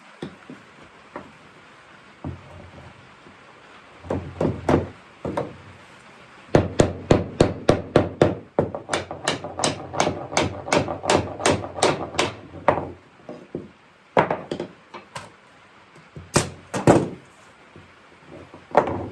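Repeated hammer blows driving the oak joints of a small rocking chair's front frame together. A few strikes come first, then a fast run of about four blows a second for several seconds, then a few slower, spaced blows near the end.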